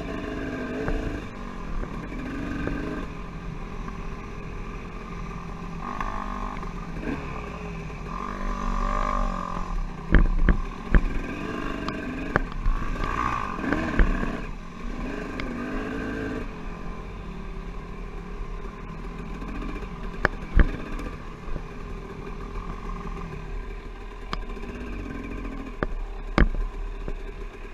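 Dirt bike engine running, its pitch rising and falling with the throttle, with several sharp knocks and clatter from the bike over the rough trail around the middle and near the end.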